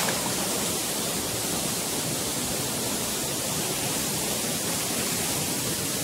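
Steady rushing of falling water from a waterfall, an even hiss with no breaks.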